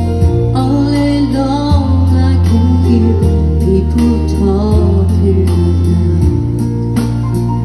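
Live country band playing a slow ballad through the PA: strummed acoustic guitar, bass and drums, with a wavering melody line over the chords.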